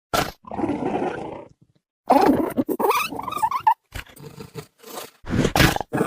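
Dinosaur creature sound effects made for a Ferganocephale: a short call, a rasping growl, then a longer call that wavers in pitch, with soft noises after it and another loud call near the end, separated by short silences.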